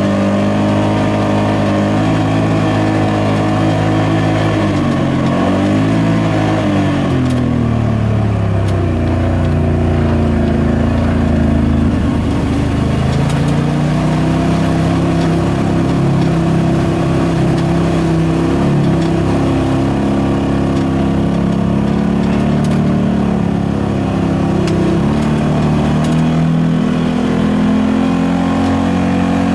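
Side-by-side UTV engine running under way, its pitch falling and rising as the machine slows and speeds up, with a brief rush of splashing about midway as it fords shallow water.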